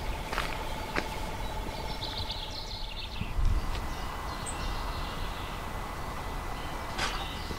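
Low rumble of a heavy lorry moving slowly on a gravel track, with a few sharp ticks and a steady pulsing tone that stops about three seconds in. Birds chirp, and there is a low thump about three and a half seconds in.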